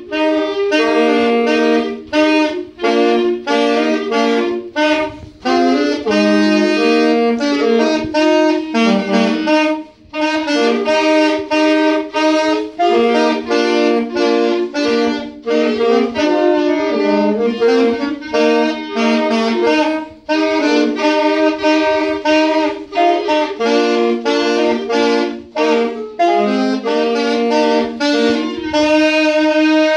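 A woodwind quartet of two saxophones and two clarinets playing a piece in harmony, in short phrases with a brief pause about ten seconds in. Near the end they settle onto a long held final chord.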